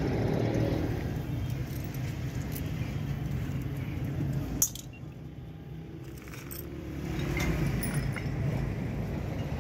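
Small metal motorcycle cylinder-head parts (valve springs, rocker arms, sprocket) clinking and jangling as they are handled and set down, with one sharp click a little past halfway, over a steady low rumble.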